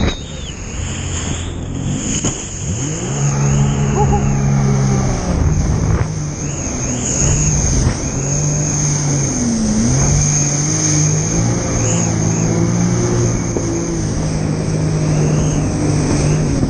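Jet ski engine running under way, its pitch stepping up and down as the throttle changes, with a brief dip and recovery about ten seconds in, over a steady rushing noise.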